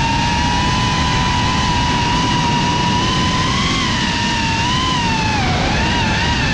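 FPV quadcopter's brushless motors whining steadily under throttle, the pitch wavering and dipping about five seconds in before climbing again, over a low rushing noise.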